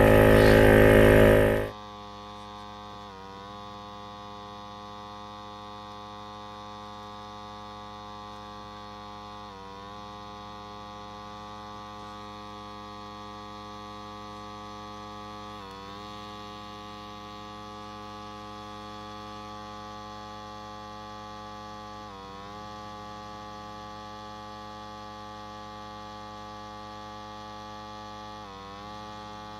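12V portable tyre-inflator air compressor running with a loud steady buzz, which cuts off abruptly about two seconds in. After that only a quieter steady hum of several fixed tones remains, with a slight waver every few seconds.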